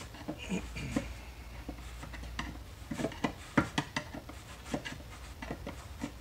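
Small metal paint can being worked open by hand: scattered sharp metallic clicks and scrapes at the lid, coming thickest a few seconds in.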